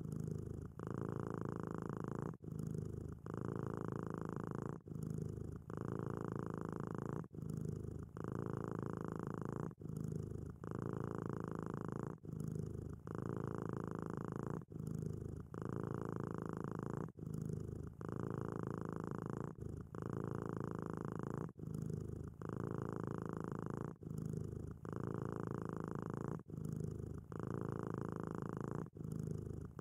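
Domestic cat purring steadily, a contented purr whose rumble breaks briefly with each breath in and out, about every second or so.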